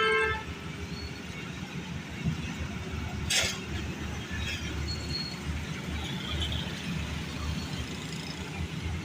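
Road roller's diesel engine running with a steady low rumble, with a short hiss about three seconds in.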